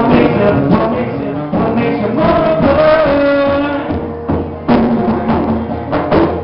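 Live acoustic band music: a man singing to a strummed acoustic guitar, with a pair of conga drums played by hand. The sung line holds long notes through the first four seconds, after which the conga strokes stand out more.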